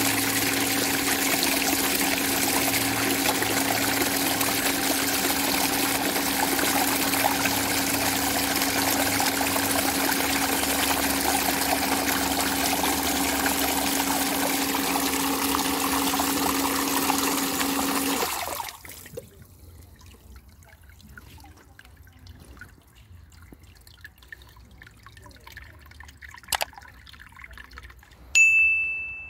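Water gushing steadily from a Bestway sand filter pump's outlet into a plastic tub while the pump motor hums. Both stop about 18 seconds in. A single click and then a short, loud, high beep follow near the end.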